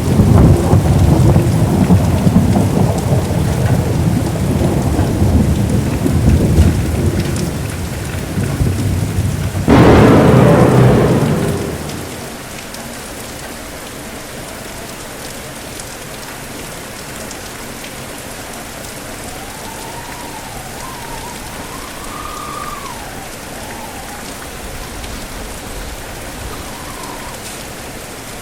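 Thunderstorm: thunder rumbling under heavy rain, a sharp thunderclap about ten seconds in that dies away within two seconds, then steady rain falling on its own.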